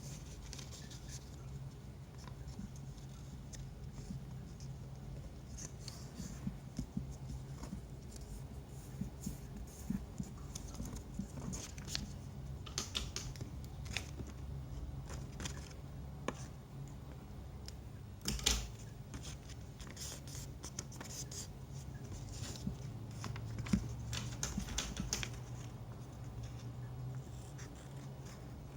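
Sheet of paper being handled by hand: irregular rustling, scratching and creasing sounds, with a sharper tap about two-thirds of the way through, over a steady low hum.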